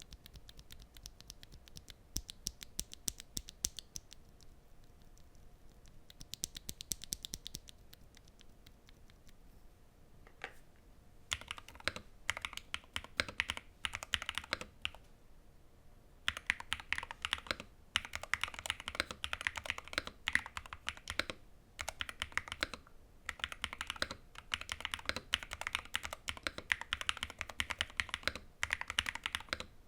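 Typing on a custom 60% keyboard with Gateron Magnetic Jade Max magnetic (Hall-effect) switches and PBT keycaps. It opens with two short runs of rapid, light clicks, then from about a third of the way in there are longer runs of steady typing separated by short pauses.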